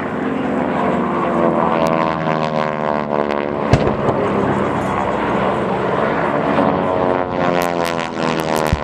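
Propeller airplane passing overhead, its engine and propeller drone slowly falling in pitch as it goes by. Two sharp cracks cut in, one about a third of the way through and one near the end.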